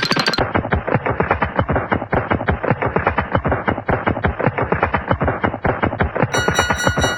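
Rapid, even rattle of sharp knocks like machine-gun fire, a cartoon sound effect. About a second before the end, a bright ringing tone with overtones comes in over it.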